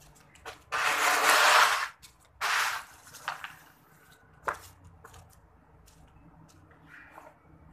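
Broom sweeping leaves and debris over a concrete floor into a dustpan: a long scraping sweep about a second in and a shorter one just after, then a few sharp knocks of the dustpan and broom.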